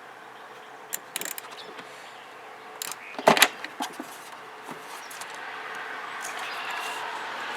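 Metal hand tools clicking and clanking on the nuts of a car battery's terminals and hold-down as they are tightened, with a loud double clank about three seconds in.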